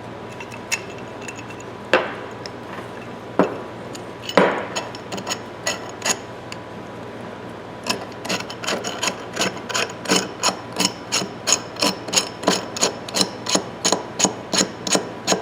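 Steel parts of a Ridgid pipe wrench clicking and knocking as the hook jaw is slid back into the frame and worked during reassembly. A few separate knocks at first, then from about halfway a steady run of clicks, about three a second.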